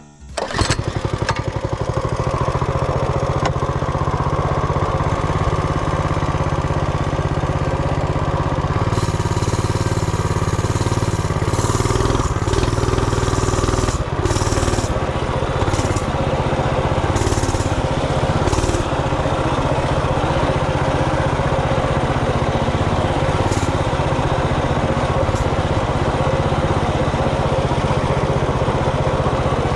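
Coleman RT200 minibike's 196cc single-cylinder four-stroke engine running steadily, with a few short bursts of hiss partway through.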